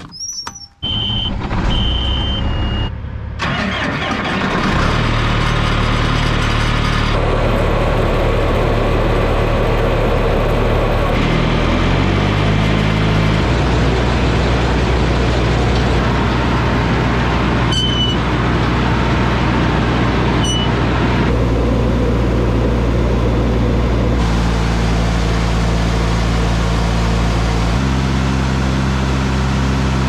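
A farm diesel engine starts a few seconds in, after a few short high beeps, and runs steadily, its pitch stepping up or down several times. Under it are the steady rush and rattle of barley pouring from a semi's hopper trailer into a tractor-driven grain auger.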